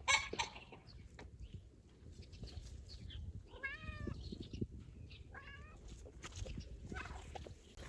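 Two short, wavering animal cries, about a second and a half apart, over faint rustling.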